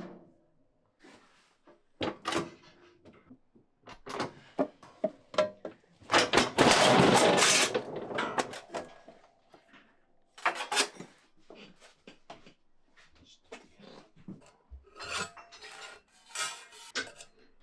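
Sheet copper scraping and clattering against the steel bed of a foot-operated squaring shear as it is handled, with a long loud scrape about six seconds in. Near the end, light repeated scratching as a line is scribed into the copper with dividers.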